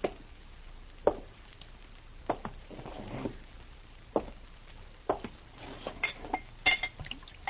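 Radio-drama sound effect of glassware being handled: a glass bottle and drinking glasses clinking and knocking on a table as drinks are set out. It comes as a string of separate sharp clinks, some ringing briefly, that grows busier in the last couple of seconds.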